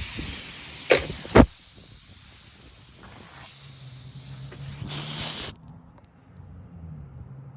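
Compressed air hissing loudly out of a tire's puncture around a plug insertion tool, with two sharp knocks about a second in. The hiss cuts off suddenly near the end as the plug seals the hole.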